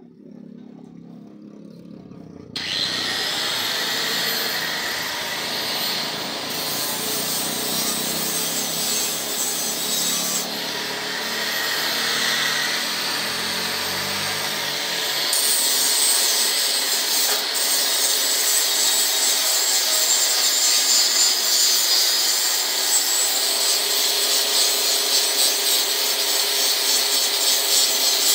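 Angle grinder starting about two and a half seconds in, whining up to speed, then running steadily as it grinds rust off a curved steel pipe.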